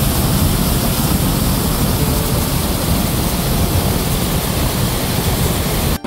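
Small waterfall: water pouring over a rock ledge into a pool, a loud, steady rush.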